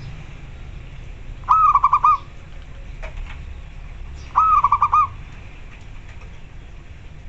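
Zebra dove (local perkutut) calling: two short coos about three seconds apart, each a quick run of four or five staccato notes.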